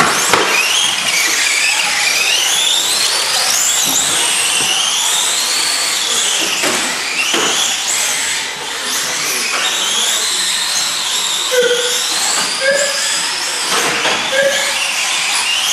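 Several electric radio-controlled model cars racing, their motors whining at high pitches that rise and fall as the cars speed up and slow down around the track. Four short beeps come in the last few seconds.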